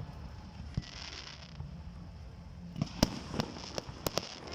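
Fireworks going off in an aerial display: a single sharp bang about a second in, then a quick run of five or six bangs and pops near the end, with a crackling hiss in between.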